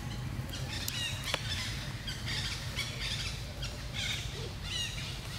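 Several short, high-pitched squeaky animal calls, a second or so apart, over a steady low rumble.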